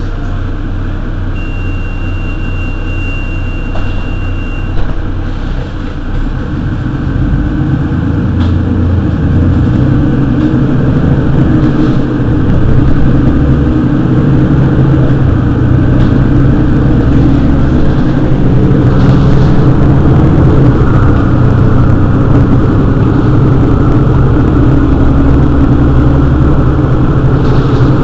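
Mercedes-Benz Citaro city bus engine running. A steady high beep sounds for about three seconds near the start. From about six seconds in, the engine gets louder as the bus accelerates, then holds a steady, louder drone.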